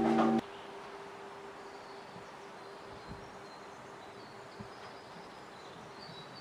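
Church bells ringing, cut off abruptly about half a second in. Then quiet outdoor ambience with faint high chirps and a faint steady hum.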